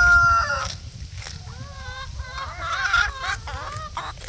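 The end of a rooster's crow, one long held note that cuts off within the first second. It is followed by quieter, wavering clucks and calls from hens.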